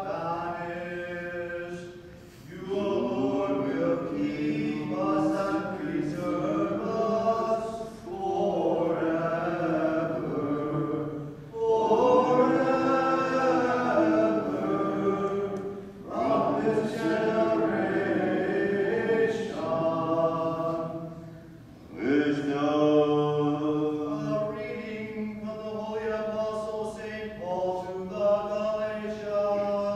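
Group of voices singing liturgical chant in phrases of a few seconds, with short breaks between phrases.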